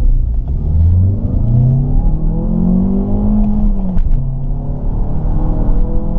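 2020 Mazda 3's Skyactiv-G four-cylinder petrol engine under hard acceleration, heard from inside the cabin. The engine note climbs steeply in first gear, drops about four seconds in as it is shifted up to second, then climbs again more slowly.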